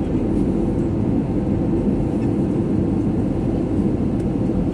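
Airbus A320 cabin noise in flight after takeoff: a steady low rumble of the engines and rushing air, heard from inside the cabin at a seat over the wing.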